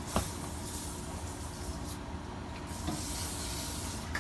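Aerosol can of penetrating oil spraying onto a seized joint: a hiss at the very start, then a longer hiss from about two seconds in, with a light knock just after the start.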